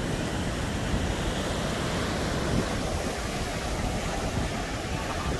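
Ocean surf washing onto a sandy beach in a steady rush, with wind buffeting the microphone as a low, uneven rumble.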